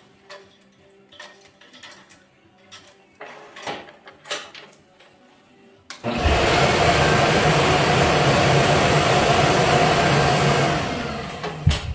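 Light clicks and knocks from handling a copper tube on a lathe. About six seconds in, a shop machine switches on with a loud, steady whir, then winds down near the end.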